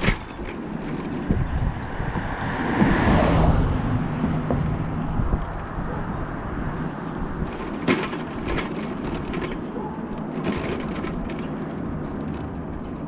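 Mobility scooter riding along a paved road: steady running and rolling noise with wind on the microphone. A louder rushing swell comes about three seconds in, and a few sharp knocks follow later.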